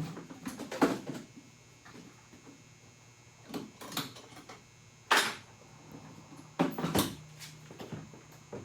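Several sharp knocks and clunks of a Harley-Davidson Electra Glide hard saddlebag being worked loose from its mount and handled, the loudest about five seconds in and another about seven seconds in.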